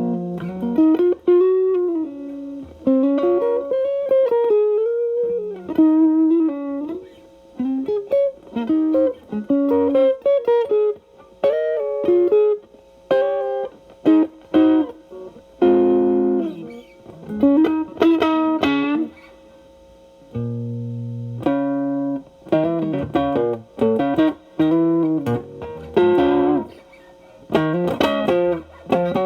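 Electric guitar (Telecaster) through an MXR Distortion+ stacked with a Boss SD-1 into a Marshall Valvestate's clean channel, in a cleaned-up setting. It plays improvised blues lead phrases of single notes with string bends, with short gaps between phrases, a strummed chord about halfway through, and a few low notes a little later.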